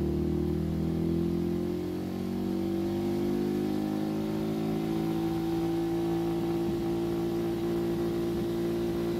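Yamaha WR125X's single-cylinder four-stroke engine held at high revs, its pitch creeping up slightly over the first few seconds and then holding steady.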